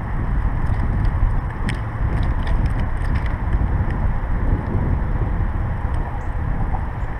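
Steady low wind buffeting on the microphone mixed with the rumble of bicycle tyres rolling along a path, with a few faint light ticks.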